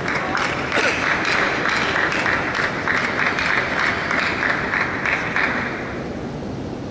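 Audience applauding a won point, a dense patter of clapping that dies away near the end.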